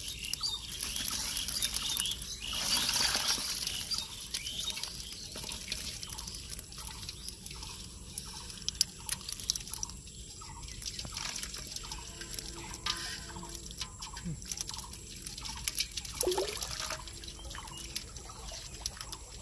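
Water splashing and dripping as a mesh net full of small tengra catfish is shaken out into a pot, with a louder splash about two seconds in and many small wet clicks and taps from the net and fish throughout.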